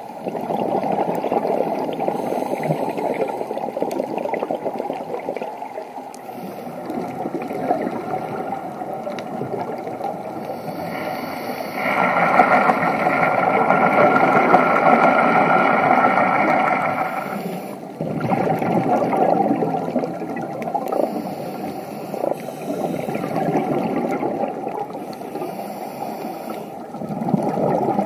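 Scuba diver's exhaled bubbles rushing and gurgling past the camera underwater. The sound swells and eases every few seconds, breath by breath, with its loudest stretch in the middle, which cuts off suddenly.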